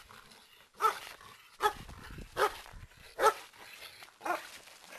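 Black German Shepherd barking at a protection-training helper: five sharp barks, about one every 0.8 seconds.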